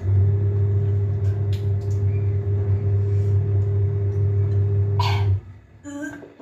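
A steady low electrical hum, with a fainter higher tone above it, from a motor or appliance; it cuts off suddenly about five seconds in.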